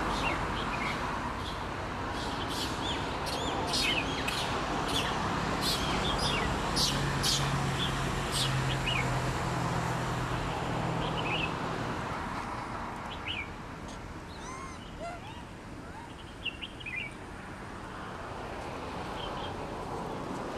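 Birds chirping: many short, high chirps come quickly in the first half, then sparser calls later, over a steady outdoor background. A low hum sits underneath from about five to twelve seconds in.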